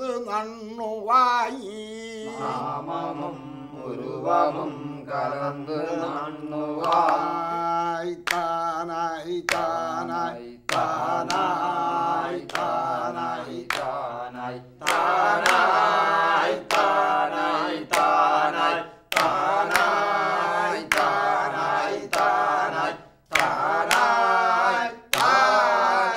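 Men's voices chanting verses of the shadow-puppet play's text, a training recitation of the sacred verses. From about seven seconds in, hand claps keep a steady time, about one and a half claps a second in the second half.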